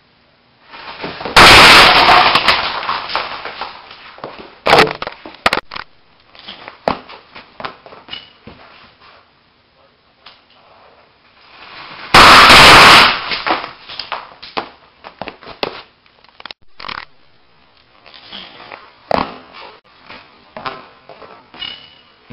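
A homemade airsoft grenade going off twice, each a very loud blast lasting about a second, followed by scattered clicks and taps.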